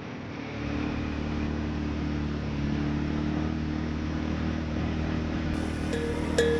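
Segway AT5 ATV engine running at a steady speed under way, over a haze of wind and road noise. Near the end two short, bright tones sound as music begins.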